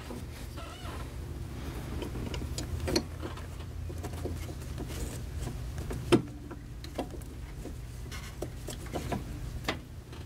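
Hand work on a 9005 headlight bulb and its plastic socket behind a car's headlight: scattered small clicks and knocks, with one sharper click about six seconds in, over a steady low hum.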